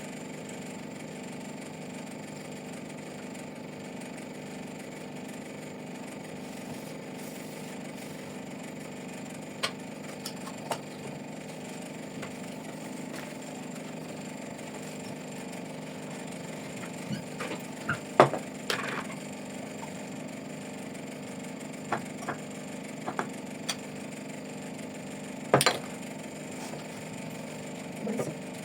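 Scattered light knocks and clicks, a cluster of them about two-thirds of the way in, over a steady low hum.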